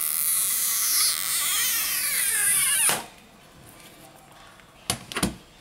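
Battery adhesive pull-tab of a Xiaomi Redmi S2 being stretched out from under the battery: a loud high squeal that glides down in pitch and stops abruptly about three seconds in. Two short knocks near the end.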